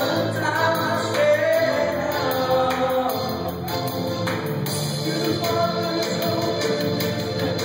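A man singing a worship song into a microphone over music with a steady beat; the sung line is clearest in the first half.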